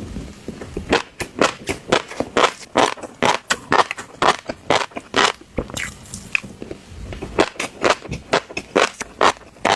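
Fish roe being eaten close to the microphone: a quick, irregular run of sharp pops and bites, several a second, with a brief sparser stretch a little past halfway.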